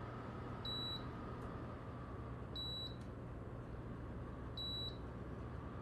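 MrCool 24K mini-split indoor unit beeping three times, about two seconds apart, each short high beep acknowledging a button press on its remote as the fan setting is changed. Under the beeps is the steady hum of its fan blowing.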